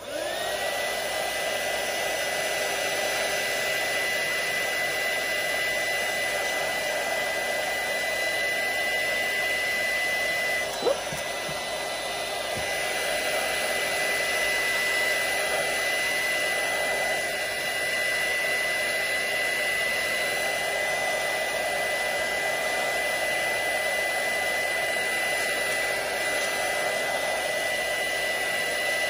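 Embossing heat gun switched on: its fan whine rises within the first second to a steady high tone, then runs with a steady blowing hiss. A brief tap about eleven seconds in.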